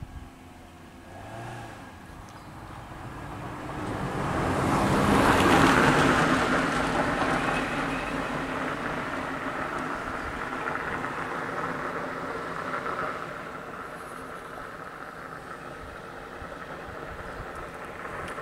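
Cars driving past on the road, tyre and engine noise. It swells to a peak about five or six seconds in as one goes by close, then settles to a steadier, lower level and eases off near the end.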